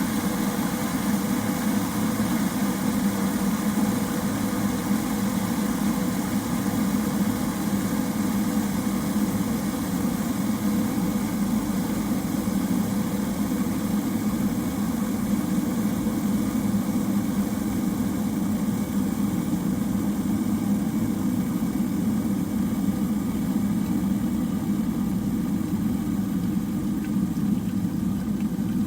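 Electric kettle heating water: a steady, even rumbling noise, deepest in the low range, that holds unchanged throughout.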